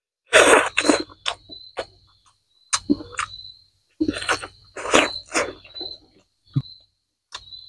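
Close-up eating sounds of a man biting into and chewing a fried broiler chicken leg: wet chewing, tearing of meat and lip smacks, in short bouts with brief pauses between. A thin, steady high insect trill, like crickets, sounds under the chewing.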